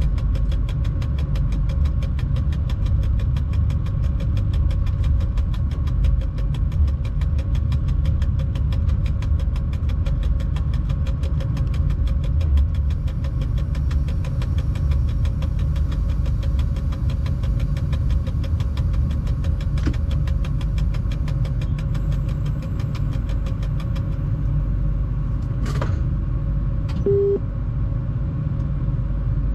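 Electric locomotive cab while shunting slowly through a rail yard: a steady low rumble with a constant electrical hum, and a fast regular ticking that fades out about halfway through. A short beep sounds near the end.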